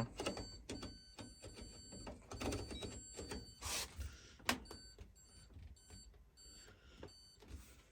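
A run of small sharp clicks with faint electronic beeps at fixed pitches, and a short hiss about four seconds in.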